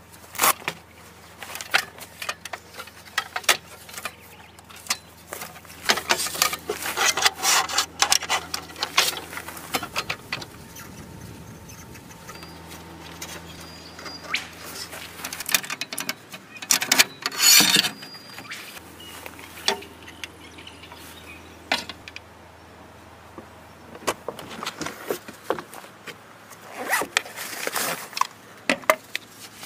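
Camp gear being handled and set up by hand: a string of knocks, clicks and rattles as a wooden slat table is fitted onto a tyre and pouches are pulled from a rack panel, with rustling in between. The busiest handling comes about a quarter of the way in and again a little past halfway.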